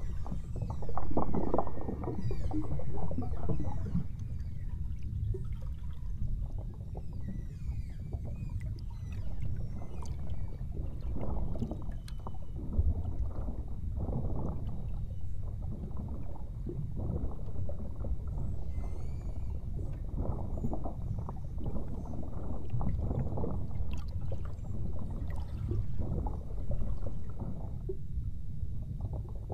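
Water sloshing and splashing against a boat's hull over a steady low rumble, loudest about a second in. Faint high chirps and whistles of beluga whales come through now and then.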